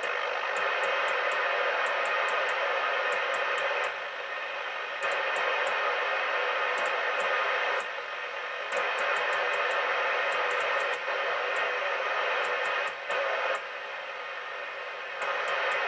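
Hiss of an open FM CB receiver from the Midland 76-900 base station's speaker as the channel selector is turned, with quick ticks as it steps from channel to channel. The hiss drops back for a second or so three times.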